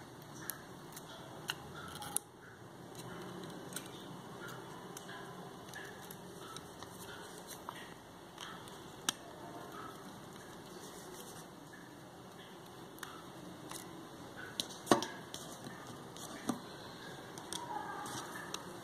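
Small clicks, taps and scrapes of plastic camera parts and small tools being handled as a Canon PowerShot A2400 lens unit is taken apart, with one louder snap late on.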